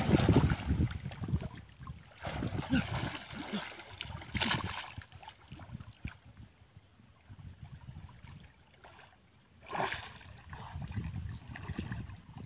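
Water splashing as a person swims in a shallow stream. The splashes come in uneven bursts, with a quiet stretch in the middle.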